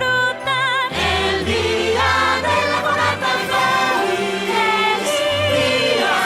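Festive song with a choir of voices over orchestral accompaniment; a single wavering held note opens it, then the full choir and band come in about a second in.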